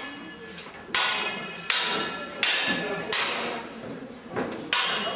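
Wooden fighting staffs striking each other in a staged bout: five sharp clacks, each with a brief ringing tail, about one every three quarters of a second, with a longer pause before the last.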